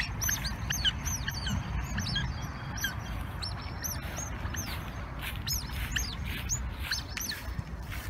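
A group of smooth-coated otters chirping: many short, high, squeaky calls, several a second, overlapping one another.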